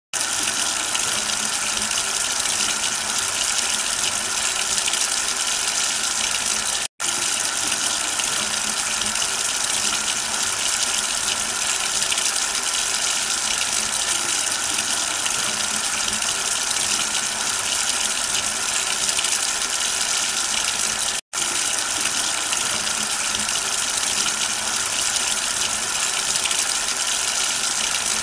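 Tap water running in a steady gush, cutting out for an instant twice, about seven and about twenty-one seconds in.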